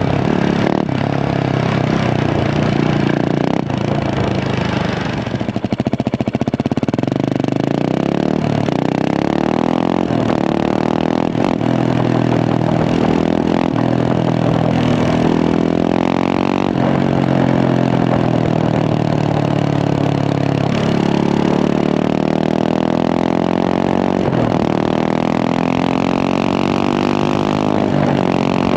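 Husqvarna 701 Supermoto's single-cylinder engine through a Remus exhaust, accelerating through the gears. The pitch climbs and then drops back at each shift, several times over.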